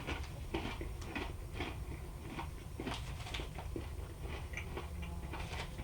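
A person chewing crunchy protein granola trail mix of dried banana, apple and pecans, with irregular crunches close to the microphone.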